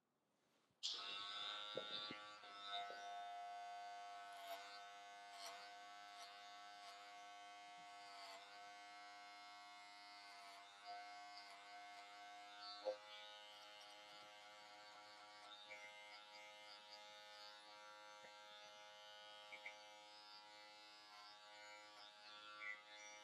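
Electric hair clippers switched on about a second in and buzzing steadily while cutting hair, with small clicks over the hum.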